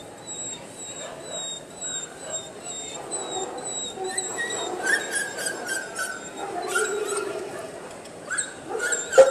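Dogs whining and yipping over the murmur of a crowded hall. A high, short chirp repeats about twice a second in the first few seconds, and falling whines and sharp yips take over about halfway through.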